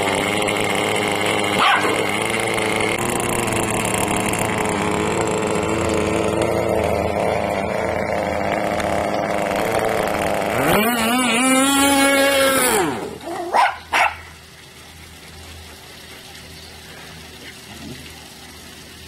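RC car motor running steadily for about ten seconds. A dog then gives a drawn-out cry that rises and falls in pitch, followed by two sharp barks. After that only quieter background remains.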